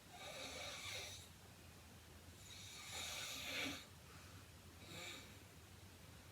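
A sleeping heavy-set woman snoring, three snoring breaths: one at the start, a longer and louder one in the middle, and a short one near the end. The snoring is presented as linked to sleep apnea.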